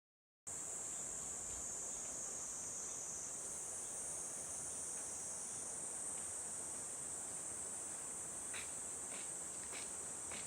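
Steady, high-pitched insect chorus, crickets or cicadas, starting about half a second in after a moment of dead silence. A few faint ticks sound near the end.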